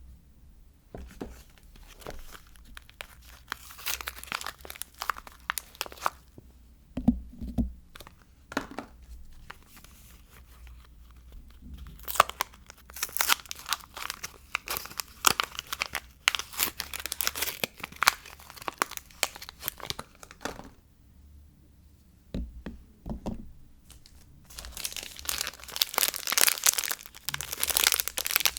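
Soap packaging being torn open and crumpled by hand: crinkly tearing and rustling in three spells, with short quiet pauses between them.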